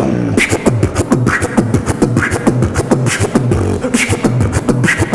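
Solo human beatboxing: fast mouth-made clicks and snares over a hummed bass line that steps in pitch, with a short rising sweep about once a second.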